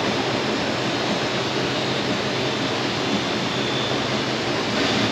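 Ford F-150's 5.4 L three-valve V8 running at idle as the truck reverses slowly, under a steady rushing noise.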